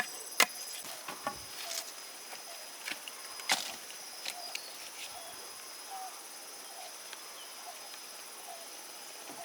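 Sickle cutting through rice stalks: a few sharp snaps, the loudest right at the start and about three and a half seconds in, then only small ones. A steady high insect drone runs underneath.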